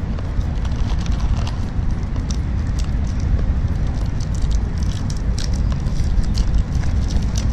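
Small plastic sour-candy wrappers being torn open and crinkled by hand, a scatter of sharp crackles, over a steady low rumble.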